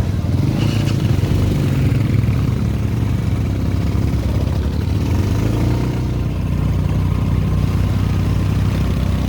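Motorcycle engine running steadily while riding, its note shifting only slightly in pitch.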